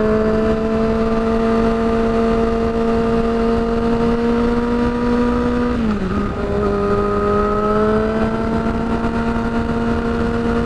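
Yamaha R6 sport bike's inline-four engine with an aftermarket shorty exhaust, running under way: a steady high engine note that climbs slowly, dips briefly about six seconds in, then holds steady again.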